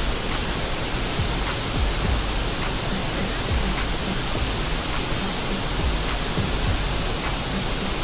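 Jonha Falls in monsoon flow: a steady, loud rush of heavy falling water close by.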